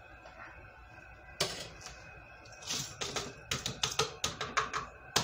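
Glass canning jars clinking and knocking together on a tray as they are handled. One sharp clink about a second and a half in, then a quick, irregular run of clinks and taps toward the end.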